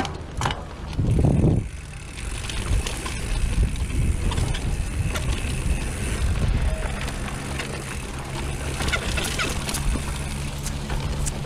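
Brusko Kalis mountain bike ridden over a grass and dirt trail, heard from a camera mounted on it: wind and tyre rumble on the microphone with scattered rattling clicks from the bike, and a louder rush about a second in.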